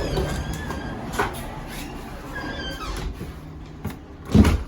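Truck engine running low and fading as the vehicle pulls up, with a few light clicks and one loud thump near the end.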